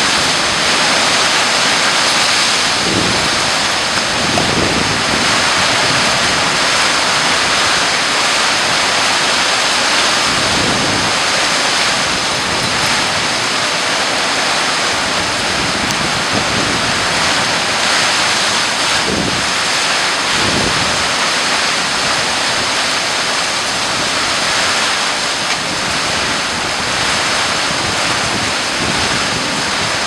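Heavy storm downpour: a loud, steady rush of rain, with gusts of wind buffeting the microphone now and then.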